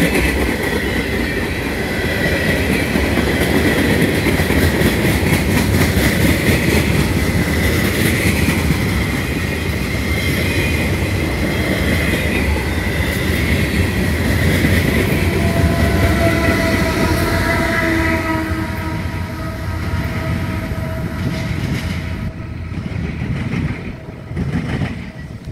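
CSX freight train's tank cars and boxcars rolling past: wheels clicking over the rail joints over a heavy rumble, with a steady high wheel squeal through most of it. The noise falls away as the last car passes near the end.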